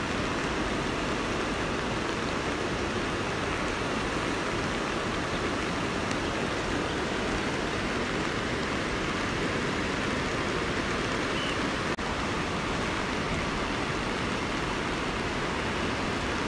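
Steady rushing of a flood-swollen mountain river, a muddy torrent in spate.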